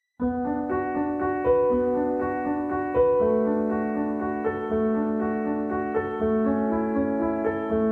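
Background piano music that starts abruptly, playing held notes and chords.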